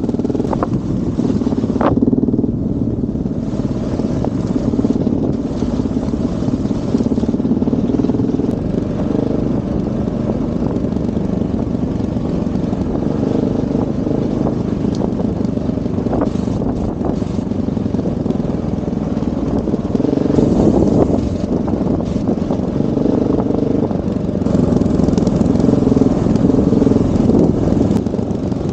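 Motorcycle engine running steadily on a dirt trail ride, heard from the rider's own bike, growing louder twice in the later part as the throttle opens.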